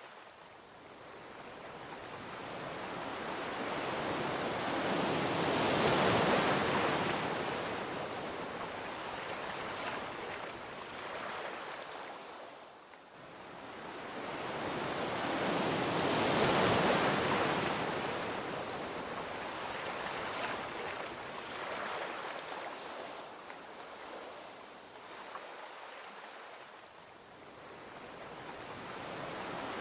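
Gentle ocean waves breaking and washing onto a beach, each wave swelling and then falling away; two waves build to a peak about 6 and 17 seconds in, and a third is rising near the end.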